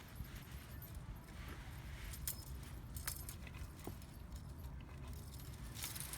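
A cat toy jingling and rattling in a few brief bursts as a tabby cat bats at it, over a low steady rumble.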